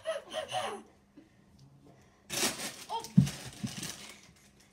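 Brief voices and laughter, then about two seconds in a loud rush of rustling and scuffling close to the microphone with two heavy thumps, the first the loudest, as people move about right by it.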